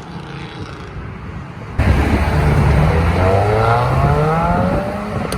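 A car's engine and exhaust running low, then about two seconds in it opens up loudly and accelerates hard, the pitch climbing steadily before easing off near the end: a hard pull-out.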